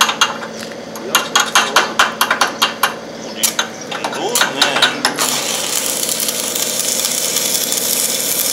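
A run of sharp metallic taps and clicks, then from about five seconds in the steady crackling hiss of an electric arc weld, powered by an engine-driven welder generator.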